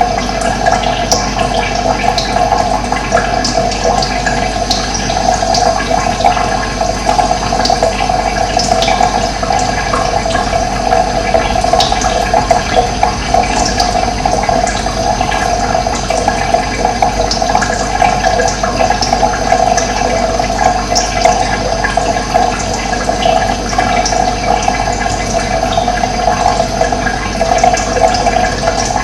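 Steady rushing of running water, with scattered short bird chirps over it.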